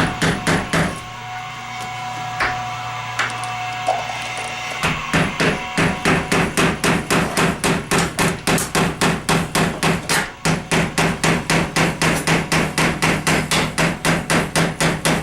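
Hammer striking a punch to drive a pin out of a dirt bike chain link: a few separate blows at first, then from about a third of the way in a fast, even hammering of roughly four to five blows a second, with one short break. The pin is stubborn and coming out slowly.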